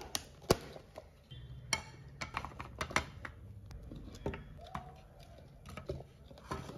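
Plastic storage jars and lids knocking and clicking on a glass tabletop while biscuits are tipped out onto a plate: an irregular string of sharp clicks and clatters, the loudest about half a second in.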